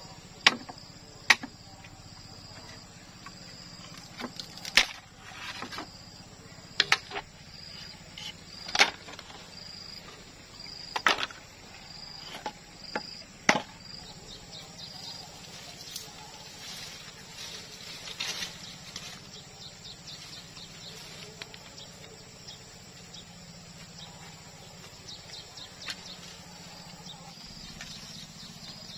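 Sharp knocks of bamboo being struck, about seven loud strikes one to two seconds apart in the first half, then fainter rustling and light clicks. Insects chirp in a steady fast pulse underneath.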